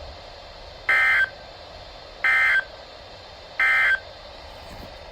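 Three short data bursts of an Emergency Alert System SAME end-of-message code on NOAA Weather Radio, evenly spaced about 1.4 seconds apart over a steady hiss, signalling the end of the warning broadcast.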